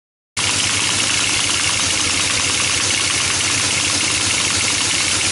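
Teletype ASR 33 running, a steady dense mechanical clatter that cuts in suddenly after a moment of silence, about a third of a second in.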